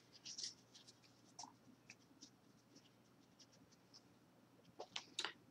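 Faint, scattered soft scratches and ticks of a stack of baseball trading cards being handled and set down on a towel, a few slightly louder near the start and near the end.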